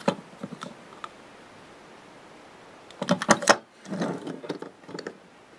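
Small plastic toy monster truck handled and set down on a wooden tabletop. A few faint clicks, then, after a quiet stretch, two short bursts of plastic clattering and scraping on the wood about three and four seconds in.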